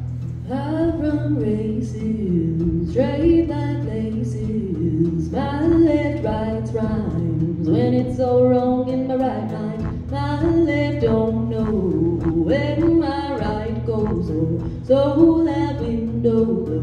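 A woman singing live with an acoustic guitar accompaniment, in sung phrases of about two seconds with short breaks between them.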